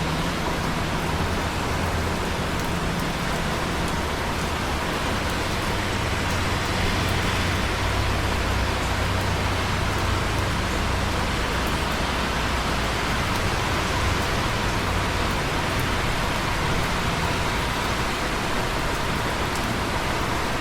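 Steady rain falling, an even hiss with scattered light drop ticks and a low rumble underneath.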